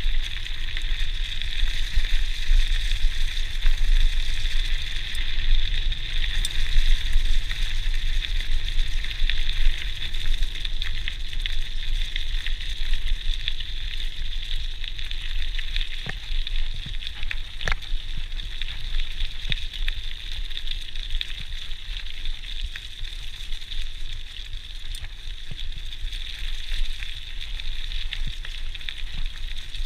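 Tyres of a GT Outpost Trail mountain bike rolling steadily over a leaf-strewn forest track: a continuous hiss with scattered small clicks and crackles, over a low wind rumble on the chest-mounted camera's microphone.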